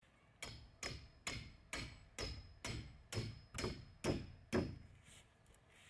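Hammer striking the top of a copper pipe, driving it into the ground: about ten even blows, two a second, each with a short metallic ring. The blows stop about a second before the end.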